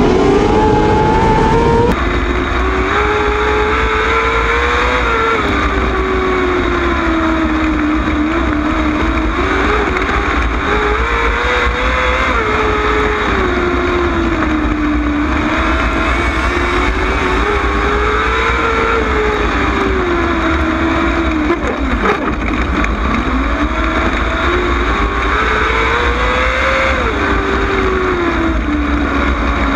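Sprint car's V8 engine heard onboard at racing speed, its pitch climbing under throttle and falling back as it lifts, in a cycle every six to seven seconds as it laps a dirt oval, over steady wind and tyre noise.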